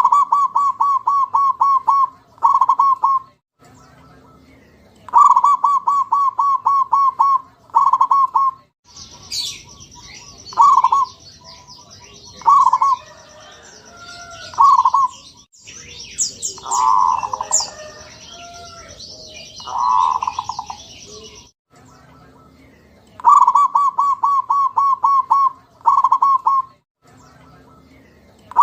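Zebra dove (perkutut) cooing: short phrases of rapid, soft staccato notes, each phrase followed by a brief pause. In the middle stretch the coos come singly and more slowly, over a steady high hiss, with a few high chirps from other birds.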